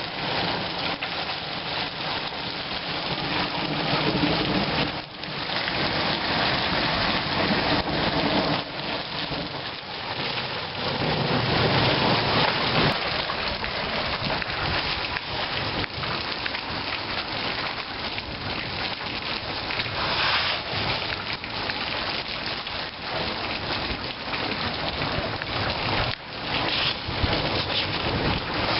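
Hail and heavy rain pelting down steadily in a dense, unbroken hiss. Low rumbles swell in about four seconds in and again near the middle.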